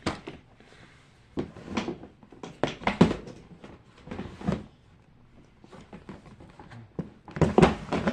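Plastic containers and toys being handled and rummaged through: irregular knocks, clatters and rustles in several short bursts, the loudest near the end.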